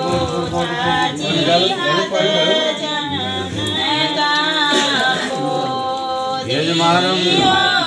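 Singing with music: voices hold and glide through long melodic phrases without a break.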